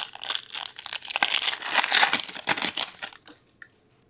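Foil hockey-card pack wrapper crinkling and tearing as the next pack is opened, with cards being handled. The crinkling stops about three seconds in, leaving a few light ticks.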